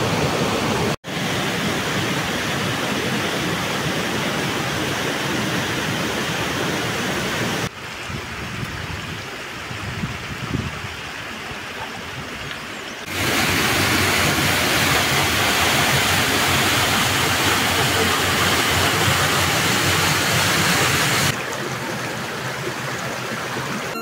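Waterfalls and white-water rapids rushing, a steady even noise. The level jumps at several cuts: a brief dropout about a second in, a quieter stretch from about 8 to 13 seconds, and a louder stretch from 13 to 21 seconds.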